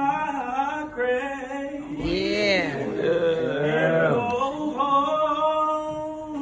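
A young man singing unaccompanied, holding long notes with bending melodic runs in the middle.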